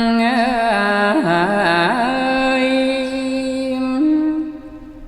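Khmer smot, unaccompanied Buddhist chanted recitation: a single voice draws out a long melismatic line, holding notes and ornamenting them with quick wavering turns. The held note fades away about four and a half seconds in.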